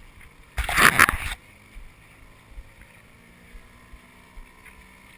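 Small boat's outboard motor running steadily at a distance, faint under the open-air background. A brief loud rush of noise close by about a second in.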